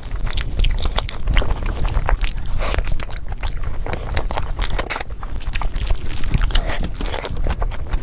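Close-miked chewing and wet mouth sounds of a person eating spicy mutton curry and rice by hand: a steady run of smacks and clicks.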